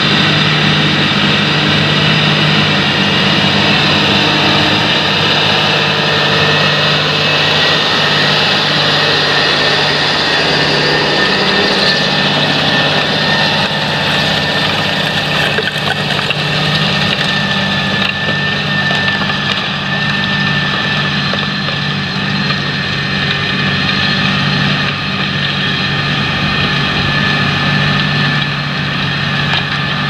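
John Deere 8360RT tracked tractor's six-cylinder diesel engine running steadily under heavy load as it pulls an eight-furrow plough, with its tracks and the soil moving beneath it and a steady high whine over the engine.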